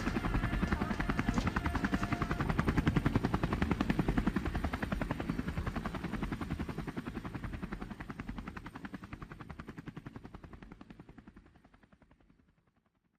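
A fast, even chopping pulse that fades away to silence near the end.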